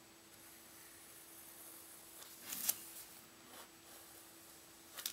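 Faint scratching of a brown sketching pencil drawing lines on sketchbook paper, with two short sharp handling noises, one a little past halfway and one near the end.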